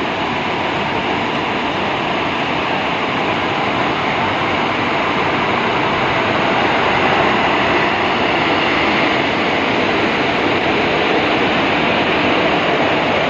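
WAP-4 electric locomotive pulling a passenger train out slowly and passing close by, with a loud, steady rush from its running gear and cooling blowers that swells a little as it draws level, about seven seconds in.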